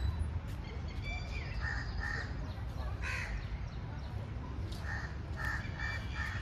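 Crows cawing: short harsh calls, a pair about two seconds in and a run of four near the end, over a steady low rumble.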